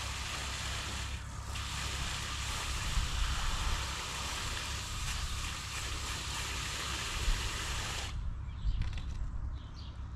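Heavy rain hissing steadily over a low rumble. The hiss drops away suddenly near the end.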